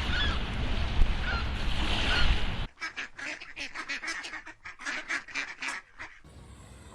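Waterfowl calling. A few short calls sound over heavy background noise, then comes a quick run of short calls, about five a second, for some three seconds before it cuts off.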